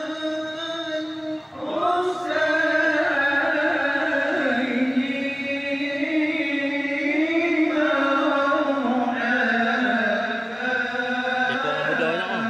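Group of men singing marhaban: Malay Islamic devotional chanting in praise of the Prophet, sung together into microphones with no instruments. The voices hold long, ornamented notes in drawn-out phrases, with a short breath about one and a half seconds in before the next phrase.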